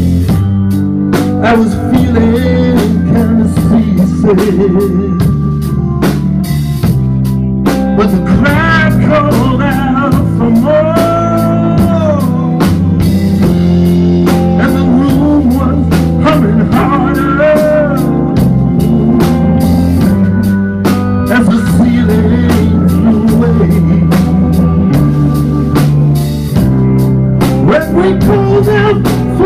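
Live band music from an electric guitar, electric bass and drum kit playing together. The guitar plays a lead line with bent, gliding notes over a steady bass and drum groove.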